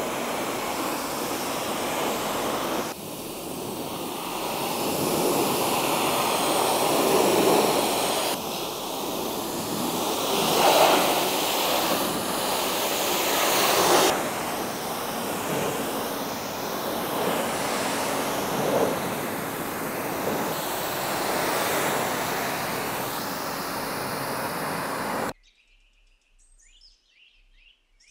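Pressure-washer jet spraying water onto a car's bodywork, rinsing off snow foam: a loud, steady hiss and splash that cuts off suddenly near the end. Faint bird chirps follow.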